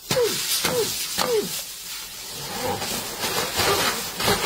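Fast river water rushing around a bridge pier, a steady hiss, with four short cries falling in pitch in the first second and a half.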